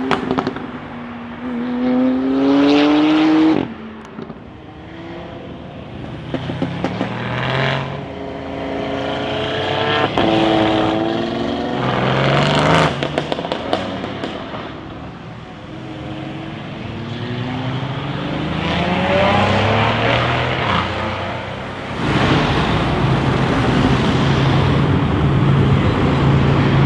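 Mercedes-AMG CLS63 S twin-turbo V8 through a decat exhaust, revving up several times with the pitch climbing each time. One rev cuts off sharply early on, and bursts of crackling pops follow. Over the last five seconds the engine runs steadily and louder.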